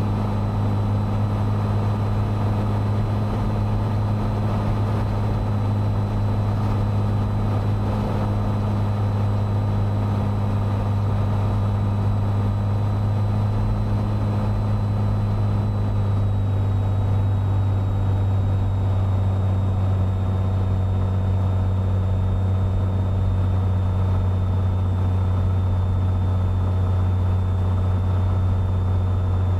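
Cessna 182's piston engine and propeller droning steadily, heard from inside the cabin on short final approach at reduced power. The pitch drops slightly about halfway through.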